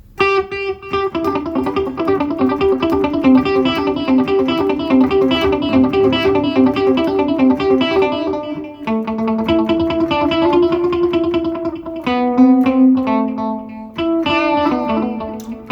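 Electric guitar played through a computer amp simulation with gain and a delay effect, heard through an FRFR amplifier: a fast run of picked notes for about the first nine seconds, then slower, longer held notes.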